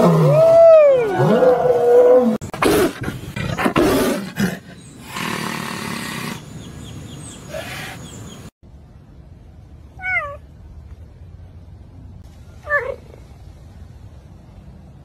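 A lion's roar tails off in a few rising and falling moans. Then a tiger makes loud, harsh, noisy calls for several seconds. After a cut, a cheetah gives two short, high chirps a few seconds apart.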